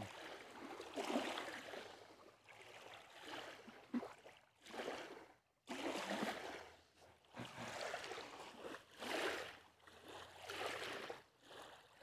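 Small waves washing onto a pebble-and-sand beach, each wash swelling and fading every second or two.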